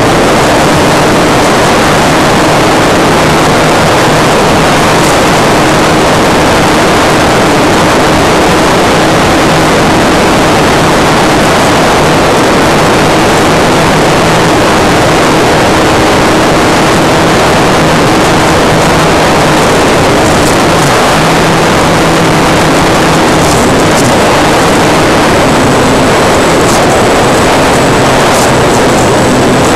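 Model combat plane's motor and propeller running in flight, picked up by a small camera mounted just behind the propeller: a loud, steady rush of propeller and wind noise with a faint hum underneath.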